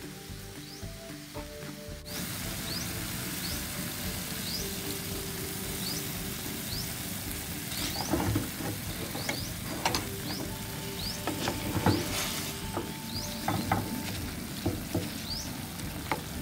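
Diced chicken, tomato and onion sizzling in a frying pan, starting abruptly about two seconds in. From about halfway on, a wooden spatula scrapes and knocks against the pan as the mixture is stirred.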